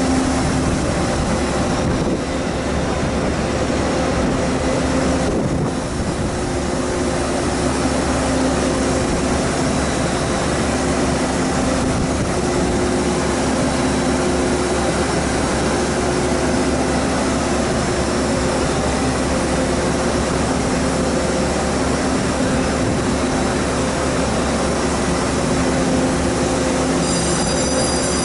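Electric trains standing at a station platform, the nearest a TEMU2000 Puyuma tilting EMU, giving off a steady hum and rumble. A low pitched drone swells and fades every few seconds, and a thin high whine comes in near the end.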